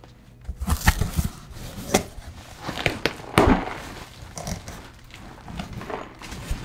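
Clear plastic wrapping crinkling and rustling as a wrapped glass tumbler is handled and unwrapped, with scattered sharp clicks and clinks, the loudest about three and a half seconds in. The glass inside is shattered.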